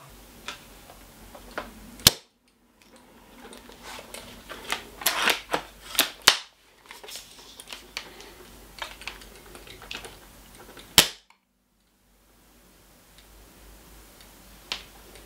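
Spring-powered airsoft bolt-action sniper rifle being worked with no BB loaded in an air-seal test of its Maple Leaf Autobot hop-up bucking: clicks and knocks of the bolt and action, with three loud sharp snaps about two, six and eleven seconds in, each cut off suddenly.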